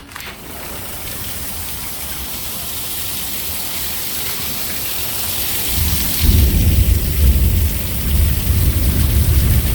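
Heavy rain hissing steadily outdoors in a thunderstorm, after a sharp click at the start. From about six seconds in, strong gusts of wind buffet the microphone with a loud, uneven low rumble.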